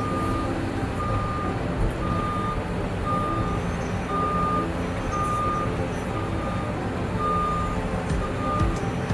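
Excavator's travel alarm beeping about once a second, a steady single-tone beep, over its diesel engine running.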